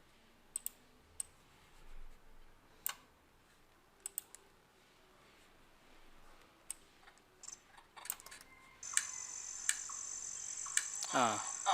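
Scattered computer mouse clicks. About nine seconds in, a steady high-pitched cricket chirring starts: an insect sound effect being played back for a forest scene.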